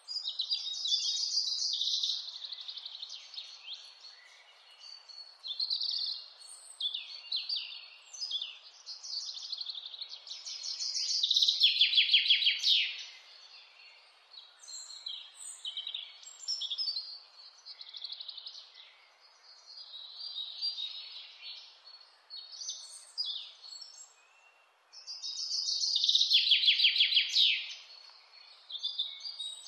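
Mountain songbirds singing, one phrase after another, with two loud, fast trills that fall in pitch, one around the middle and one near the end, over a faint steady hiss.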